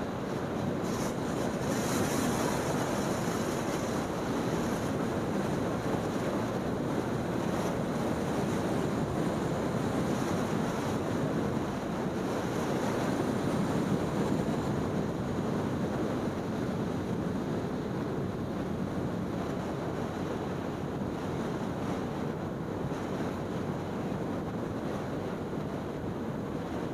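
Steady rush of wind over the microphone from riding a motor scooter at speed, a dull even roar with no clear engine note above it, swelling slightly a couple of times.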